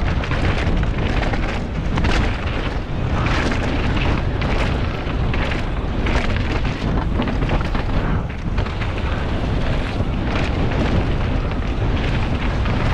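Wind rushing and buffeting over a helmet-mounted action camera's microphone at downhill mountain-bike speed, mixed with the rattle and irregular knocks of the bike and tyres over a rough, rocky trail.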